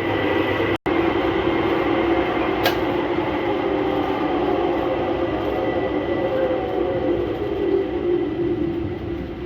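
Metal lathe running as its cutting tool cuts a V-groove for a belt into a wheel: a steady mechanical running noise with a constant low hum, one sharp tick about three seconds in.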